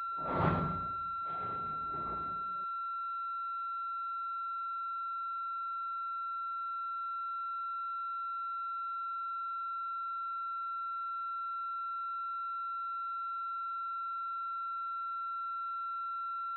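A steady, unchanging electronic tone with a few fainter higher tones over it, heard through a two-way radio feed. A short burst of radio static comes in the first couple of seconds.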